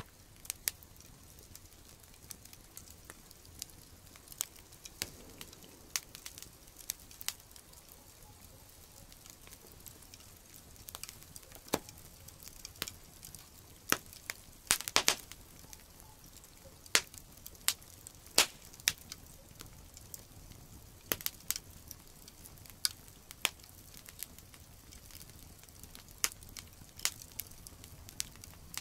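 Wood campfire crackling, with sharp irregular pops over a faint hiss, a cluster of louder pops about halfway through.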